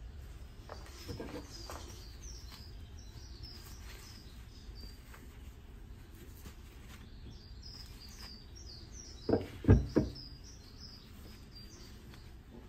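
A small bird chirping in repeated short, falling notes, with a few light clicks about a second in and three quick knocks about nine seconds in as metal castings are handled and set down on a wooden bench.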